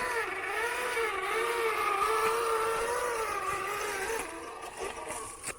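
1/10-scale RC4WD Cross Country RC truck's electric motor and gearbox whining, the pitch rising and falling with the throttle, then fading about four seconds in.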